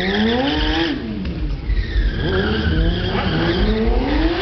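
Sport bike engine revving up and back down twice, with tyre squeal as the bike turns in tight circles on asphalt.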